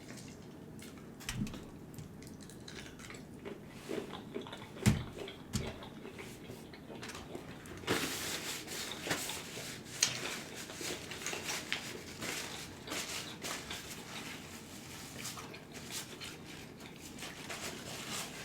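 Close-miked chewing and mouth sounds while eating a seafood boil. There are a few sharp clicks in the first six seconds, and denser crackling, squishy eating noise from about eight seconds in.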